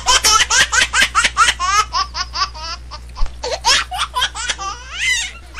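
High-pitched laughter in a rapid run of short ha-ha bursts, with a brief lull a little past the middle.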